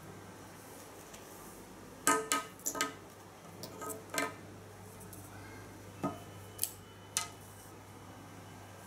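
Rugged iPhone 5s bumper case being handled, with its charging cable and port cover: a series of sharp clicks and light knocks with a slight ringing. There is a quick cluster about two seconds in, one more after four seconds, and three spaced clicks between six and seven seconds.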